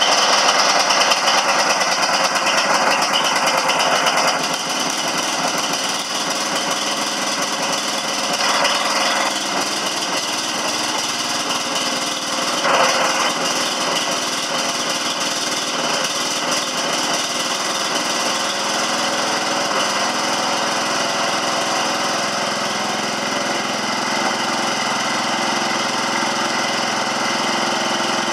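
Kohler 16 HP single-cylinder engine on a Roper T-20 garden tractor running steadily. It is a little louder for the first four seconds, then settles, with a brief swell about thirteen seconds in.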